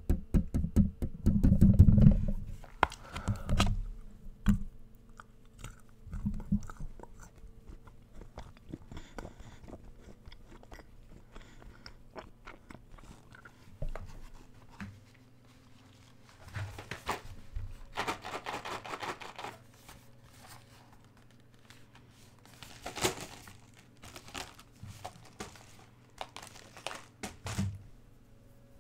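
Close-miked chewing and crunching of chocolates, loudest and densest in the first few seconds, then sparser mouth clicks and a few short noisy bursts later on.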